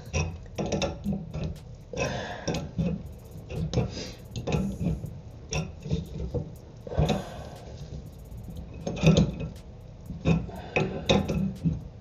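Adjustable wrench clicking and clinking against the metal nut of a braided toilet supply line as it is tightened onto the angle shutoff valve, in short irregular taps. A couple of short grunts are mixed in.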